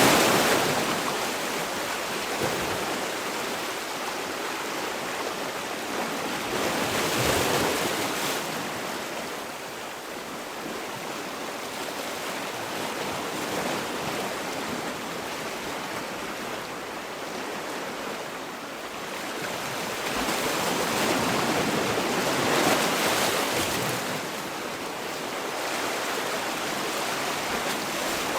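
Sea waves washing ashore, a steady rushing of surf that swells and eases as each wave breaks and draws back.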